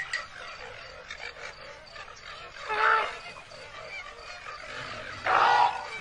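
Two short, loud animal-like cries, one about three seconds in and another near the end, over a steady background hiss.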